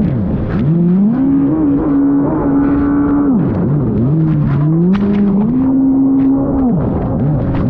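Racing jet ski engine running near full throttle, its revs dropping as the throttle is backed off for turns about three and a half seconds in and again near the end, then climbing back up. Water spray splashes against the hull throughout.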